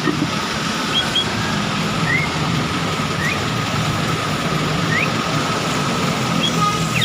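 Steady engine-like hum and hiss. Over it, a pet starling gives a few short, rising chirps, spaced a second or more apart.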